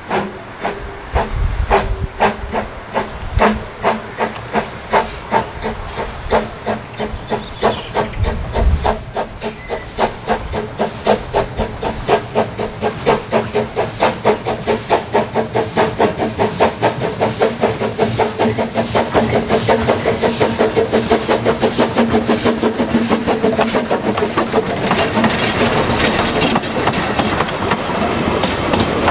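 Narrow-gauge steam locomotive working toward the camera, its exhaust beats hissing and growing louder and quicker as it nears. In the last few seconds the coaches roll past close by, their wheels clattering on the rails.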